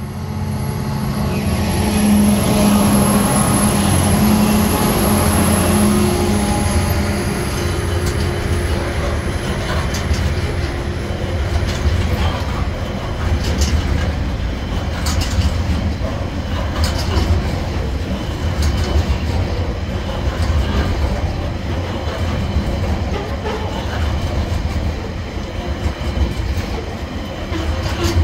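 Two TasRail TR class diesel locomotives climb a grade under load and pass close by with a steady engine drone for the first several seconds. A long string of container wagons then rolls past with a rhythmic clickety-clack of wheels over the rail joints.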